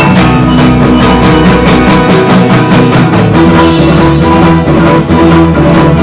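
Pop-rock band playing: drum kit keeping a steady beat under strummed acoustic guitars, electric guitars, electric bass and piano.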